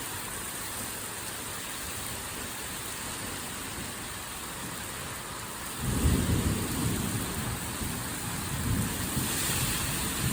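Heavy rain hissing steadily; about six seconds in, a low rumble of thunder sets in and rolls on with swells, following a lightning strike.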